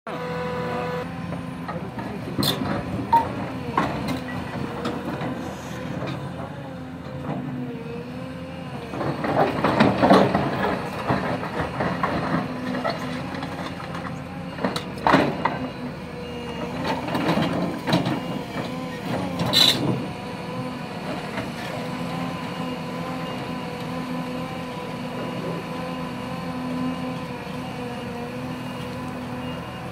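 Hyundai crawler excavator's diesel engine running steadily under load. Over it come bouts of rumbling soil and rock and sharp clanks as the bucket digs and dumps spoil into a dump truck. The loudest bout is about ten seconds in, with more between fifteen and twenty seconds.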